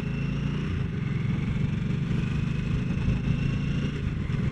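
Harley-Davidson Nightster 975's Revolution Max liquid-cooled V-twin running at low speed while the bike is ridden in first gear, its note fairly steady with small rises and falls of the throttle.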